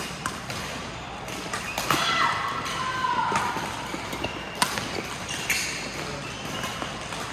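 Badminton rally: sharp racket strikes on the shuttlecock every second or so, with sneakers squeaking on the court floor, including one long squeak about two seconds in.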